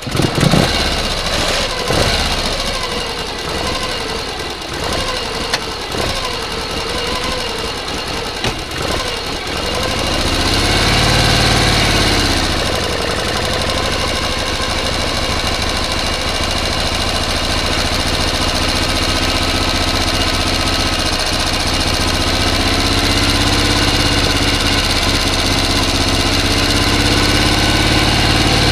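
A combustion engine running, uneven for the first several seconds. About ten seconds in it revs up and back down, then settles into a steady run.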